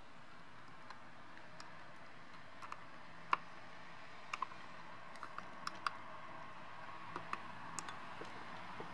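Small plastic clicks and taps as a LiPo's balance-lead plug is fitted into the side balance port of an iMAX B6 charger, coming irregularly in little clusters, the sharpest about three seconds in. A steady faint hiss lies underneath.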